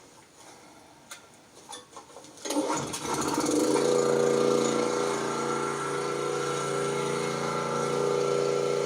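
A pressure washer's small gasoline engine starts up about two and a half seconds in, after a few faint clicks, then runs steadily.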